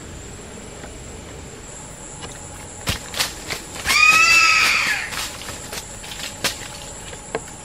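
Steady insect buzz of the forest, broken by a few short clicks and, about four seconds in, a loud high-pitched animal call lasting about a second.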